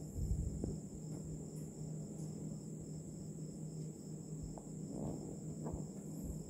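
A steady high-pitched trill runs over a low hum, with a few faint knocks and rustles of handling as the device is moved.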